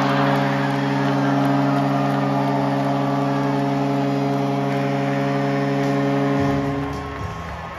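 Arena goal horn sounding for a home-team goal: one long, steady chord of several tones, cutting off near the end, with the crowd cheering beneath it.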